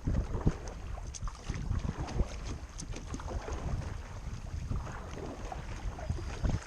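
Wind buffeting the microphone in uneven gusts, with small ticks and water lapping against a fishing kayak's hull.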